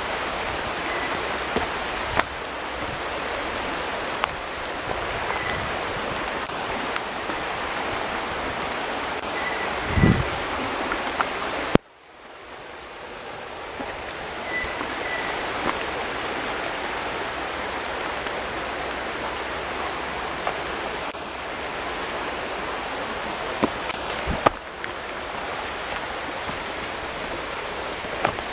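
Steady rain falling on the forest leaves, with scattered sharp ticks of drops and a low thump about ten seconds in. Near the middle the sound cuts out abruptly and swells back in.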